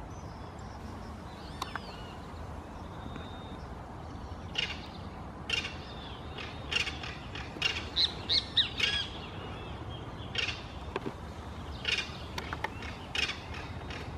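Southern caracaras calling: a series of short, harsh calls starting a few seconds in, roughly one a second, with a quick run of the loudest calls about halfway through as one bird throws its head back.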